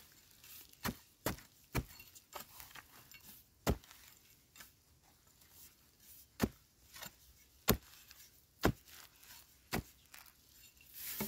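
Metal digging spade chopping into hard, dry soil while digging out a wild yam tuber: about eight sharp strikes at irregular intervals.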